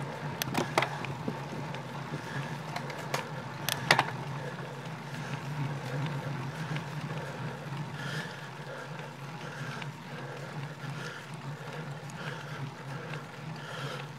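Road bike riding along a lane, recorded from the handlebars: steady tyre and wind noise, with a few sharp rattles about half a second in and again about four seconds in as the bike goes over bumps.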